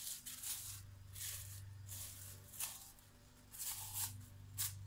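Spatula scraping and squishing through soap batter in a plastic-lined mold: a run of soft, irregular brushing and crinkling sounds over a steady low hum.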